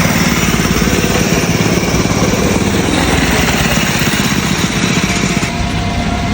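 A small petrol engine running steadily with a fast, even rattle, easing slightly near the end.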